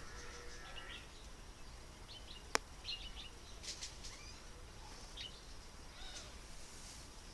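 Short high chirps and tweets from small birds, a few at a time, over steady outdoor background noise, with one sharp click about two and a half seconds in.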